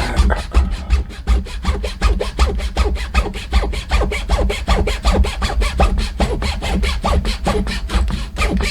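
Hand saw cutting through a nylon rod in a miter box: rapid, even back-and-forth strokes, about five a second, with no break.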